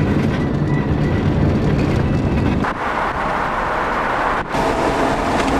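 Road and engine noise of a moving car heard from inside the cabin, a steady low rumble. A little under three seconds in it changes abruptly to a hissier, rushing noise with much less rumble.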